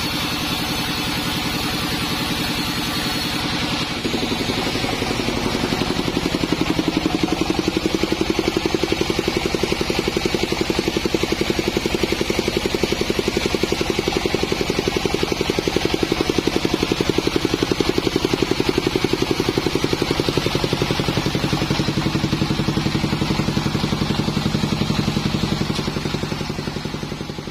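Bandsaw sawmill running steadily with a fast, even pulsing; the sound shifts about four seconds in and fades out near the end.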